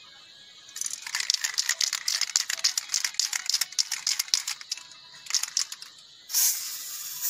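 Aerosol can of dye-penetrant developer shaken hard, its mixing ball rattling rapidly for about five seconds. Near the end a steady spray hiss starts as the developer is sprayed onto the weld.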